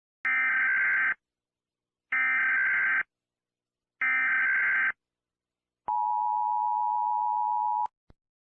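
Emergency Alert System SAME header: three one-second stretches of buzzing digital data tones about a second apart, followed by a steady two-second attention tone that cuts off sharply.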